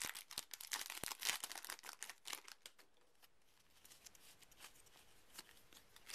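Foil trading-card booster wrapper being torn open and crinkled: dense crackling for about the first two and a half seconds. After that come sparser, fainter clicks of the cards being handled.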